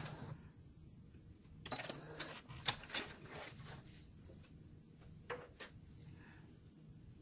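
Brother sewing machine stitching stops just after the start; then a run of sharp mechanical clicks and fabric handling as the sewn piece is drawn out from under the needle, with a second pair of clicks a little past the middle.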